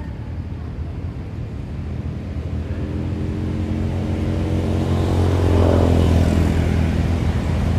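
A motor vehicle engine passing nearby, a steady hum that grows louder from about two seconds in, is loudest around six seconds in, then eases a little.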